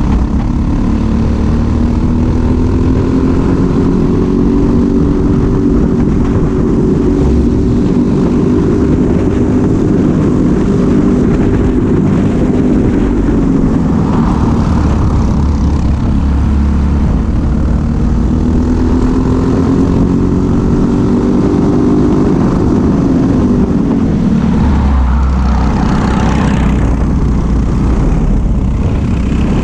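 Briggs & Stratton LO206 single-cylinder four-stroke kart engine running hard under racing load, heard from on board. Its note rises and falls through the lap, dropping twice and then climbing again, over a steady low rumble.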